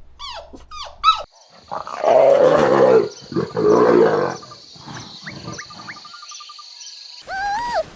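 A large animal roaring twice, long and loud, after a second of high squeaky yelps; short high chirps follow.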